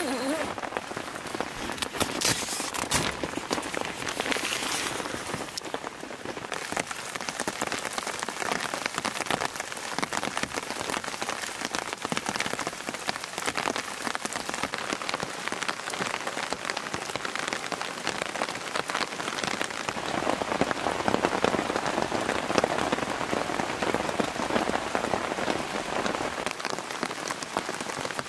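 Steady rain falling, drops hitting a camp tarp and the wet ground, growing a little heavier about two-thirds of the way in.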